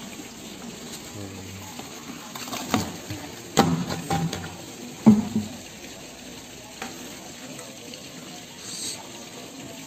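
Bull eating wet mash feed from a concrete trough: wet slurping and munching, with a few sharp knocks against the trough.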